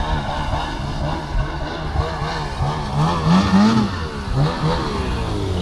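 Ski-Doo snowmobile engine revving hard as it skims across open water, its pitch swinging rapidly up and down over and over, with the highest, loudest revs about three seconds in.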